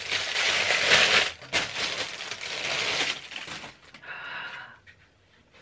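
Plastic wrapping crinkling and rustling as a camera body is unwrapped, loud for about three seconds. A short breathy gasp follows about four seconds in.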